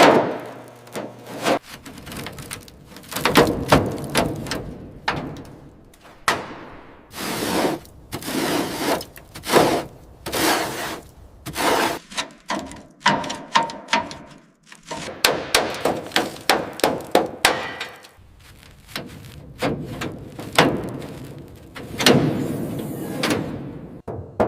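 Irregular hammer blows and knocks on metal, with stretches of scraping noise between them.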